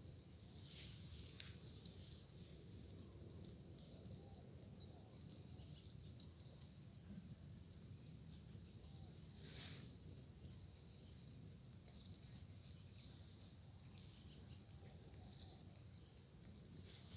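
Faint rural outdoor ambience: a steady high insect drone over a low rumble, with a brief soft rustle about ten seconds in.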